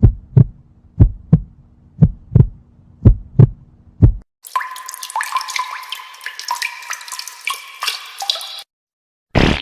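Heartbeat sound effect: paired lub-dub thumps about once a second over a low hum, for about four seconds. It cuts off and is followed by about four seconds of a busy, high-pitched patter of many short tones and clicks, then a brief burst near the end.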